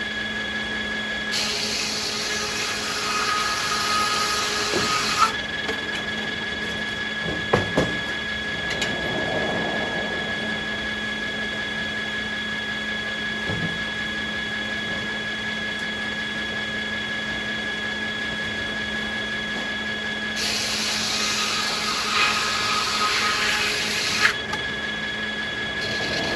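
Sawmill saws running steadily with a constant hum and whine, cutting American beech twice, each cut a loud hiss lasting about four seconds, one near the start and one near the end. A few sharp knocks fall between the two cuts.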